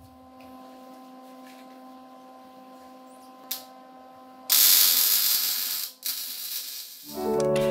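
A faint steady electrical hum with a single click, then about halfway through a loud, even hiss that breaks off briefly and carries on for about two and a half seconds in all. Music starts near the end.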